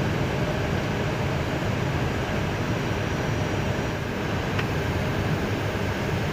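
Steady rushing cockpit noise of an Airbus A320 on final approach, with landing gear down and flaps at full.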